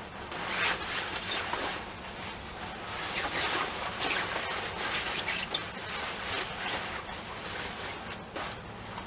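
A stiff, shiny checked overskirt rustling as it is shaken out and wrapped around the hips, in an irregular run of rustles.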